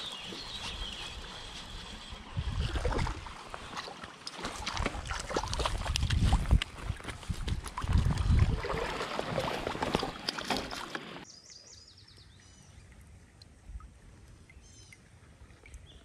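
A hooked brown trout being reeled in on a spinning rod and netted: water splashing and sloshing, with many sharp clicks and knocks of reel and tackle handling. About eleven seconds in it cuts suddenly to a much quieter stretch with a few faint chirps.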